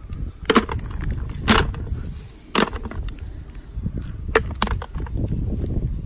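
Walnuts dropped one at a time into a plastic bucket: about half a dozen sharp, hollow knocks at irregular intervals.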